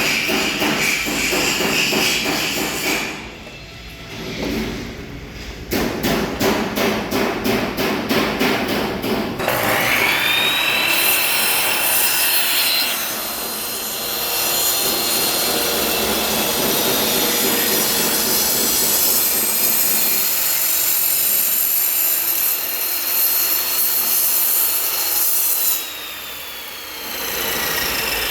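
Ingco mitre saw's motor whining up to speed about ten seconds in, running and cutting wood with its whine held for about fifteen seconds, then switched off and spinning down with a falling whine near the end. Before the start-up, a few seconds of rapid rhythmic rasping.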